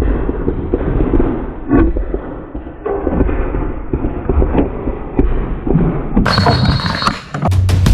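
Muffled, irregular thumps, knocks and rustling on a body-worn camera's microphone as the player moves during a paintball game, with a few sharper pops among them. Near the end the sound changes and a steady low tone comes in.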